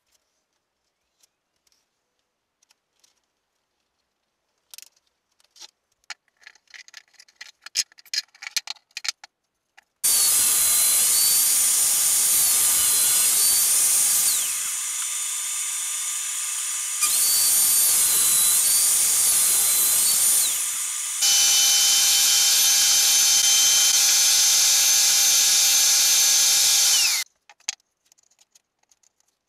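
Table saw running and cutting MDF, loud and steady, in stretches that start and stop suddenly with two short dips between them, cutting off about two seconds before the end. Before the saw starts, several seconds of light clicks and taps.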